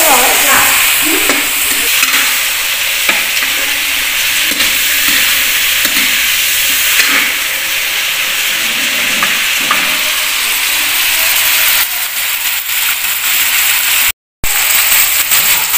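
Pork pieces sizzling in a hot electric wok while a metal spatula stirs and scrapes them around the pan. The sound drops out briefly near the end.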